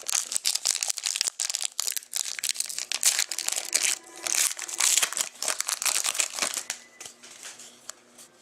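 A trading-card pack wrapper being torn open and crinkled by hand: dense crackling that thins out and quietens about six or seven seconds in.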